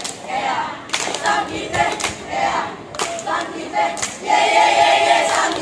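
A group of young scouts chanting a yel-yel in unison, sung in short phrases with hand claps about once a second. Near the end they hold one long, loud note together.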